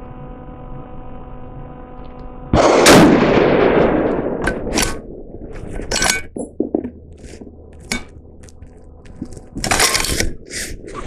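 A single shot from a Magnum Research Mountain Eagle bolt-action rifle in 28 Nosler about two and a half seconds in: a loud crack that dies away over a second or so. It is followed by a run of sharp metallic clicks and a clatter near the end as the bolt is worked. A steady tone hangs underneath before the shot.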